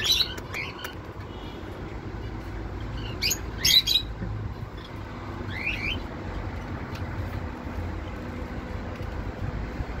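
Indian ringneck parrot calling in short squawks: one at the very start, a loud cluster about three to four seconds in, and a rising call around six seconds. A steady low rumble runs underneath.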